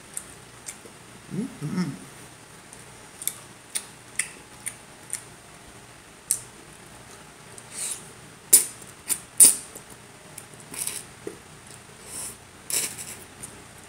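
Close-up chewing and mouth sounds of someone eating steak: wet smacks and clicks at irregular intervals, the loudest two about 8.5 and 9.5 seconds in.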